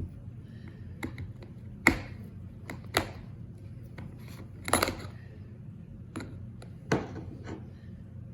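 Clicks and light knocks of rocket motor hardware being handled: the 75 mm reload case and its forward closure and fittings. There are four sharper knocks, about a second or two apart, over a steady low hum.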